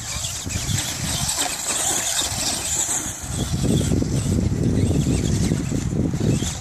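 Brushed electric motor of a Traxxas Stampede 4x4 RC truck whining as it drives over loose sand, heard from a distance. A louder low rumble comes in about halfway through.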